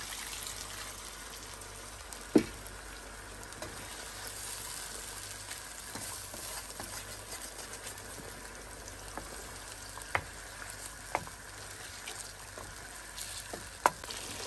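Potato karahi gravy, just thinned with water, sizzling steadily in the pan while a wooden spoon stirs it, with four sharp knocks of the spoon against the pan.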